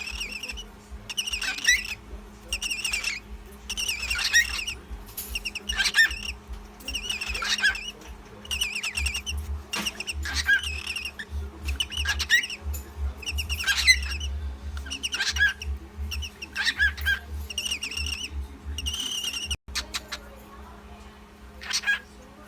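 Cockatiel calling over and over: short warbling whistles, about one a second, which stop about twenty seconds in. The calls are offered as a cockatiel mating call. A faint steady hum runs underneath.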